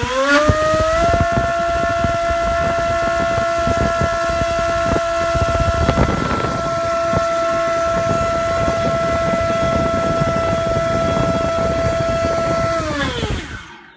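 FPV Model MC2204 2300 kV brushless mini-quad motor spinning a Gemfan 5040 propeller at full throttle on a 3S battery during a static thrust test. It is a steady high-pitched whine over a rush of prop wash, rising in pitch for the first second as it speeds up, then winding down and stopping near the end.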